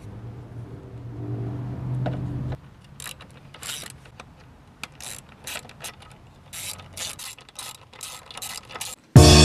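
A low hum that stops abruptly, then a hand socket ratchet clicking in short, uneven strokes as fasteners are tightened, likely while refitting the intake. Loud music cuts in at the very end.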